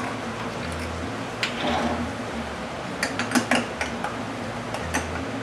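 A metal spoon clinking and scraping against a glass salsa jar and a plastic container, a few scattered clinks with a quick cluster of them about three seconds in, over a steady low kitchen hum.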